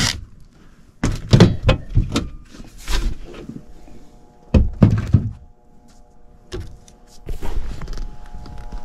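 Several clunks and knocks of sheet-metal furnace panels being handled. From a little past the middle, a steady electrical hum of several even tones: the furnace's low-voltage control transformer energised.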